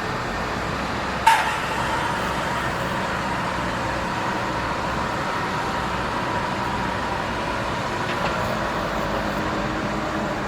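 Heavy excavator running steadily, with a sharp clank a little over a second in, followed by a thin steady high whine that lasts several seconds.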